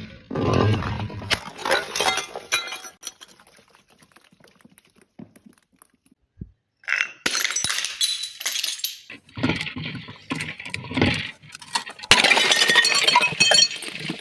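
Glass bottles breaking, with shards cracking and clinking against each other in several bursts. A few seconds of near quiet with scattered ticks comes in the middle, and the densest, loudest crunching of glass comes near the end.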